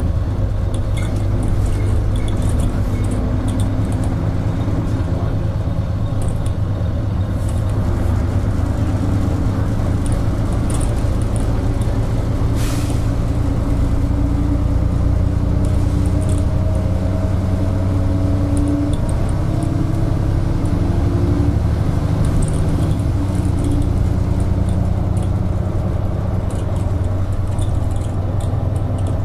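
Interior sound of a moving Ikarus-bodied DAF single-deck bus: a steady engine and drivetrain drone with a whine that rises slowly a couple of times as it pulls, and interior fittings rattling lightly. A short hiss about twelve seconds in.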